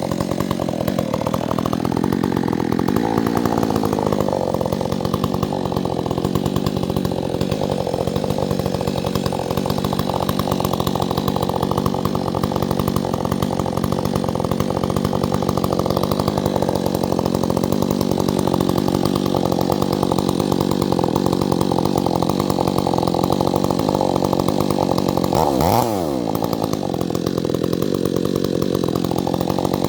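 Chainsaw running steadily at high revs, with a brief dip in revs near the end before it speeds back up.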